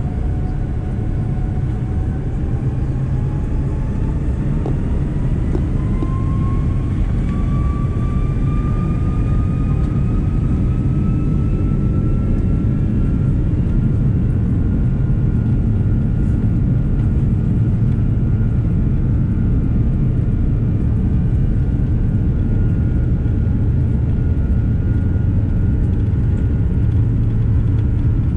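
Airbus A330's jet engines heard from inside the cabin, spooling up with a whine that rises in pitch over the first ten seconds or so and then holds steady over a loud rumble as the airliner rolls down the runway on its takeoff run.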